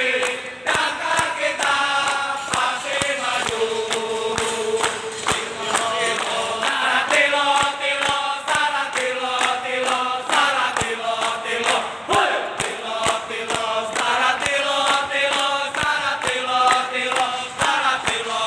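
A group of men sing a chant together in unison, clapping their hands in a steady rhythm.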